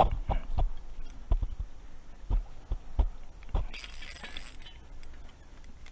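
A string of irregular dull thumps and knocks, with a short rustling clatter about four seconds in.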